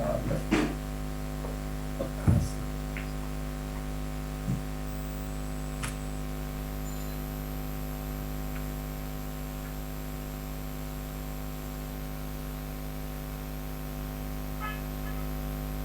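Steady electrical mains hum, a set of constant tones, with a few brief faint clicks in the first several seconds.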